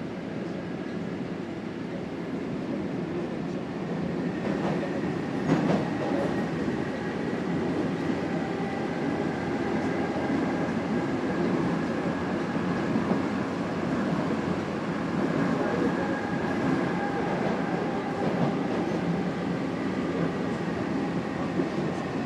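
Cairo Metro subway train running: a steady rumble with a faint high whine, growing a little louder about four seconds in, with a sharp click about five and a half seconds in.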